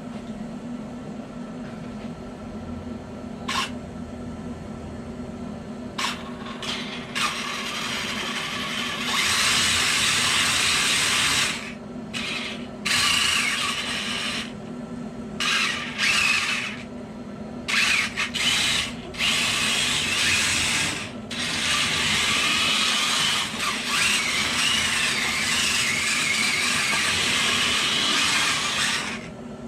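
Kyosho Blizzard 2.0 RC snowplow's twin brushless motors and drivetrain whirring like a power drill in repeated bursts of throttle. It starts and stops again and again, beginning about a third of the way in after a quieter steady hum.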